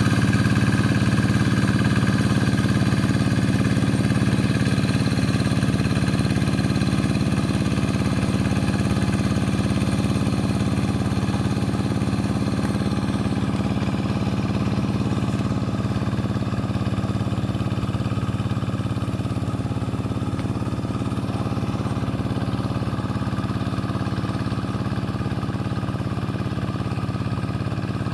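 Rice-field tractor engine running steadily at an even pitch, slowly getting quieter.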